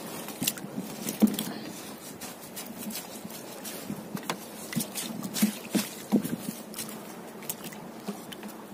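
Wet nylon gillnet being hauled hand over hand over the gunwale of a wooden fishing boat, with irregular knocks and clicks as the net and its catch of mackerel drag over and drop against the hull.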